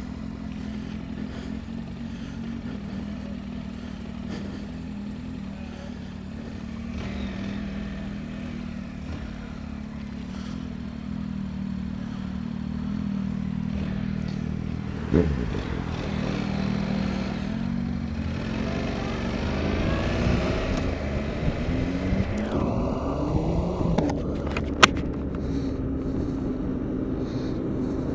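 Motorcycle engine heard from the rider's seat, running steadily at low speed, then accelerating from about halfway, its pitch climbing and dropping as it goes up through the gears. Two sharp clicks, one about halfway and one near the end.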